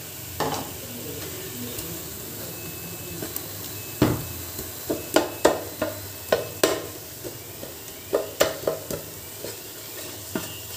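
Onion, ginger, garlic and green chilli paste sizzling as it fries in ghee and oil. From about four seconds in, a metal slotted spatula stirs it and knocks against the pot a dozen or so times.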